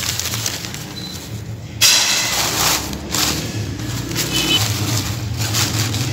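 Yellow tissue paper crinkling and rustling as it is handled and pressed into a cardboard box, starting suddenly about two seconds in.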